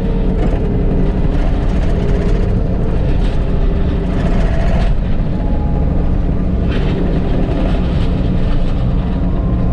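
Bobcat T650 compact track loader's diesel engine running steadily under load while working gravel, with a few brief scrapes over it about three, five and seven seconds in.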